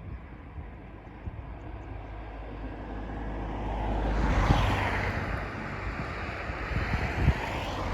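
Noise of a passing vehicle, swelling about three seconds in to a peak and then slowly easing off, with a sweeping change in tone, over a steady low rumble.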